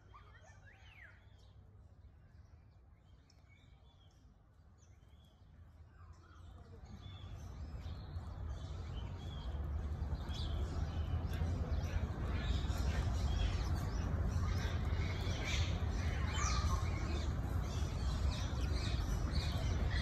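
Birds chirping in many short, high chirps over a low rumbling background noise that swells in about six seconds in and then stays loud.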